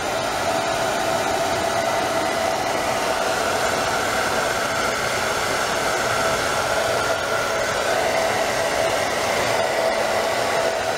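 Hair dryer running steadily, blowing on a small dog's wet fur after a bath: an even rushing blow with a steady whine through it.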